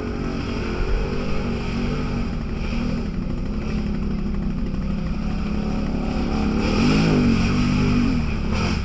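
Off-road vehicle engine running steadily on the trail, then revving up and back down twice near the end.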